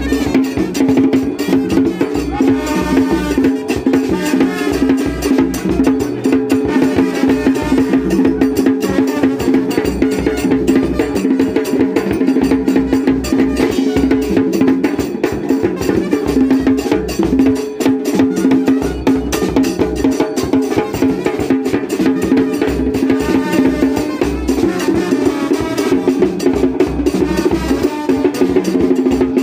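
Percussion-heavy dance music with a steady beat.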